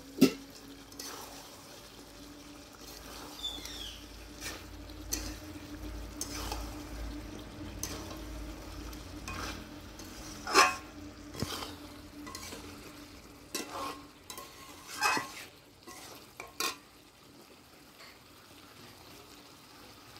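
Flat metal spatula stirring chicken and potatoes in a metal kadai, scraping and knocking against the pan now and then, over a low sizzle of frying: the potatoes being fried down in the spiced masala.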